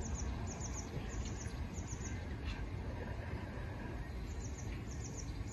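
Bogie hopper wagons of a freight train rolling past with a steady low rumble. Over it, a bird chirps high and thin in quick groups of three or four, repeating about every half second, with a pause midway.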